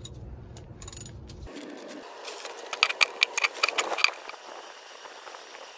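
Ratchet wrench clicking in a quick run of sharp clicks about two seconds in, loosening an engine oil pan's drain plug, over a faint steady hiss.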